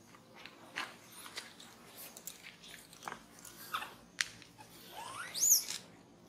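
A young macaque gives one short, shrill squeal that rises sharply in pitch about five seconds in. Before it come scattered small clicks and smacks.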